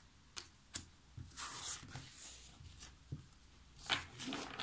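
Tarot cards being handled and slid onto a table: a few light ticks, then two longer papery swishes, one a little over a second in and one near the end.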